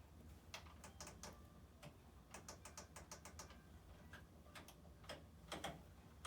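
Faint, irregular light clicks and taps, a few at a time with short gaps, over a low steady hum.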